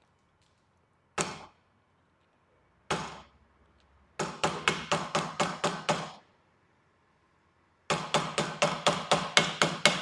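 Hammer strikes ringing on metal, tapping a nut tight without a socket. A single blow about a second in and another near 3 s, then a run of about eight quick taps around 4 to 6 s, and another rapid run starting near 8 s.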